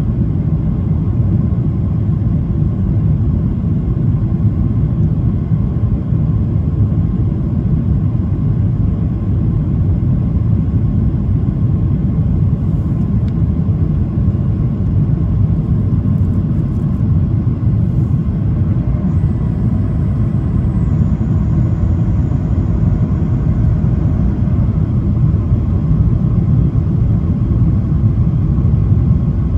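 Steady rumble inside the cabin of a Boeing 737-800 in flight, from its CFM56-7B engines and the airflow over the fuselage, heard at a window seat behind the wing.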